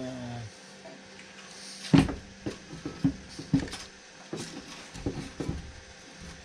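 Camera being picked up and handled close to the microphone: a string of irregular knocks and clicks, the first and loudest about two seconds in, preceded by a short low falling hum at the very start.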